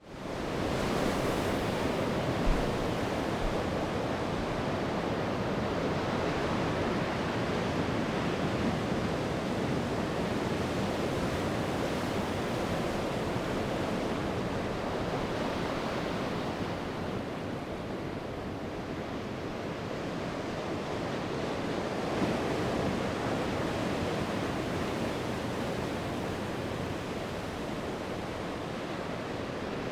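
Sea waves breaking and washing on the shore: a continuous rushing surge that fades in at the start and slowly swells and eases. There is a brief low thump about two and a half seconds in.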